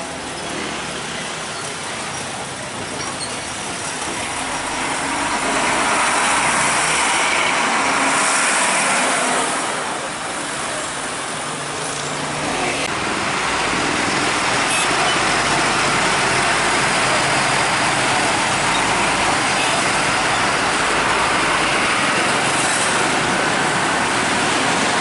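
Heavy trucks passing at close range, with engine and tyre noise and general road traffic. The noise grows louder about five seconds in, dips briefly around ten seconds, then stays loud and steady.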